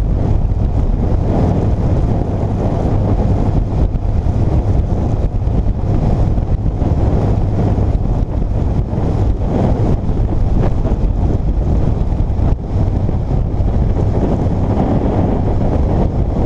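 Wind rushing over the microphone on a moving motorcycle, with the steady hum of the Yamaha FJR1300's inline-four engine underneath.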